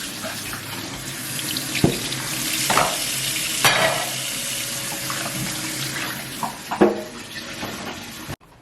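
Onions frying in hot olive oil in a pan: a steady sizzle with a few sharp knocks of a utensil against the pan. It cuts off suddenly near the end.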